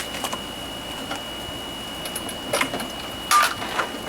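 Scattered light clicks and clinks of metal tools and small parts being handled while working on a lawnmower, busiest near the end, over a faint steady high-pitched tone.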